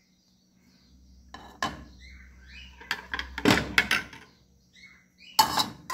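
Kitchen clatter of dishes and utensils being handled: scattered knocks and clinks, a quick run of them in the middle and the loudest knock near the end.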